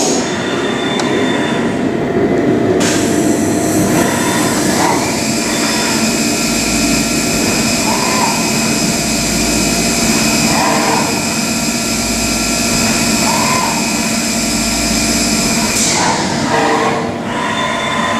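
CNC milling machine cutting an aluminium part under flood coolant: the spindle and cutter run with a steady mechanical noise and the hiss of coolant spray. A steady high whine joins a few seconds in and drops out near the end.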